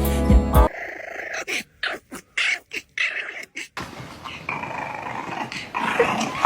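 A dog growling and grumbling in a string of short, irregular bursts, after a music track cuts off under a second in.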